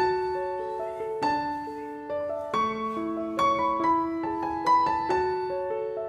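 Background piano music: a melody of struck notes, each ringing and fading, with new notes about twice a second.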